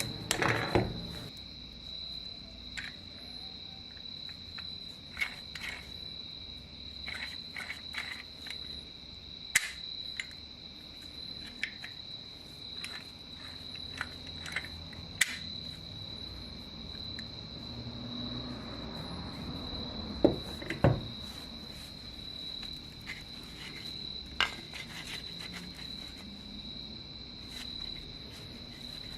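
A steady high-pitched insect trill, like a cricket's, carries on throughout. Over it come scattered sharp clicks and knocks of small metal parts and tools being handled, with two louder knocks about two-thirds of the way through.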